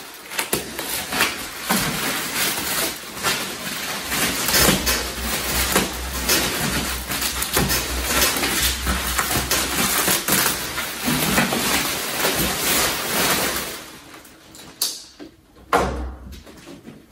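Plastic bubble wrap crinkling and rustling as it is unwrapped and pulled away, with dense crackles that die down about fourteen seconds in, followed by a few light knocks.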